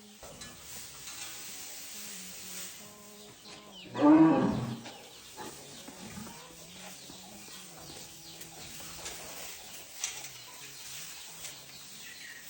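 A single loud animal call about four seconds in, lasting about a second.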